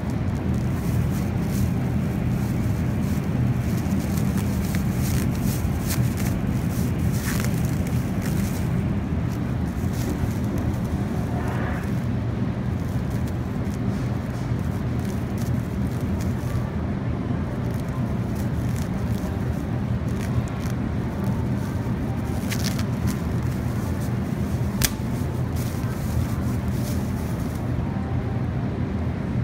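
Steady low rumble of supermarket background noise, the hum of ventilation and refrigerated produce cases, with a few short crinkles and clicks from a thin plastic produce bag being handled.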